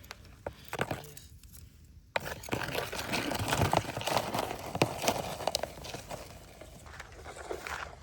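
Rustling and crackling of forest-floor debris being disturbed, with sharp snaps and cracks. A few isolated clicks come first; about two seconds in the crackling starts suddenly, stays dense for a few seconds, then thins out.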